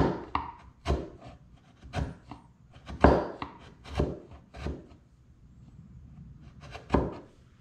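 Bench chisel paring thin shavings off pine dovetail pins by hand, smoothing away the saw marks: a series of short scraping cuts, each starting sharply, about one a second, then a pause and one last cut near the end.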